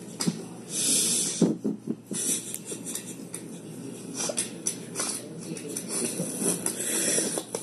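Dogs barking in irregular bursts over a steady hiss. This is a recorded barking sound played over the house speakers, the alarm that sounds when a housemate sleeps in the daytime.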